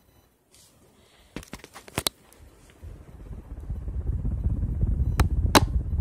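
Air from a running ceiling fan buffeting the microphone: a low rumble that builds up about halfway through and stays loud. A few sharp clicks come before it, and two more near the end.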